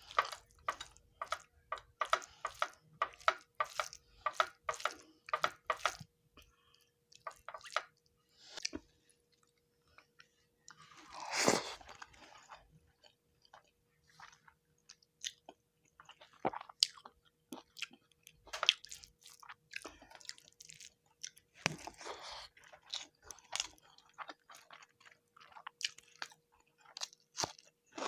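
Close-miked chewing of rice and fish curry: a steady run of wet mouth clicks and smacks, with one louder, drawn-out sound about eleven seconds in.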